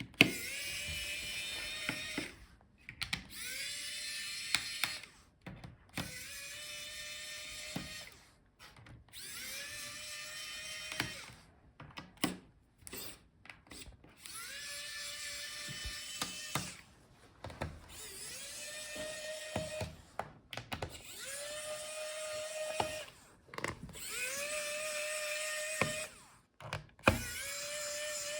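Electric screwdriver backing out the laptop's bottom-case screws one after another: about a dozen short runs, each spinning up to a steady whine, with small clicks between.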